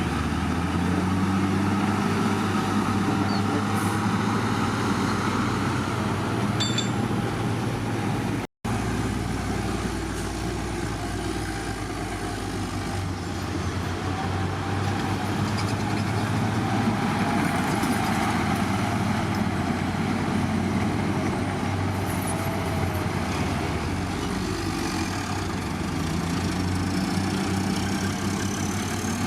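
Heavy diesel engine of earthmoving machinery running steadily, its pitch drifting up and down a little as it works under load. The sound cuts out for a split second about a third of the way in.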